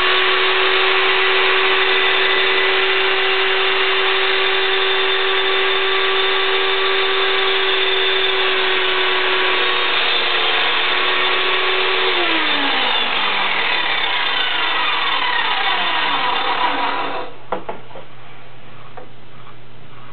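Sears Craftsman 1-2/3 horsepower circular saw with a 40-tooth blade, running at full speed through a light trim cut in a wooden frame piece. About twelve seconds in the trigger is released and the blade winds down with falling pitch, stopping around five seconds later. A few small knocks follow.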